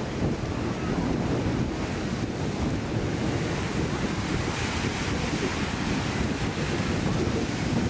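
Ocean surf breaking and washing over a rock breakwater, a steady rushing wash, with wind buffeting the microphone.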